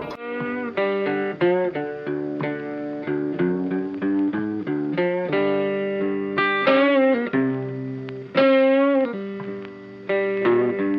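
Background music: a plucked guitar melody of quick single notes, with two long held notes bent and wavering about two-thirds of the way through.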